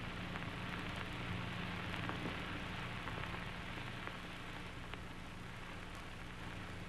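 Steady hiss and low hum of an old sound-film track with no music or voice, broken by a few faint clicks.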